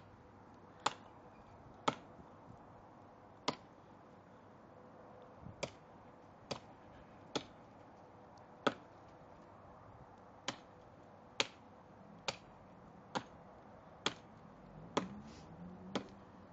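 A series of about fourteen short, sharp knocks at uneven spacing, roughly one a second, over a quiet background.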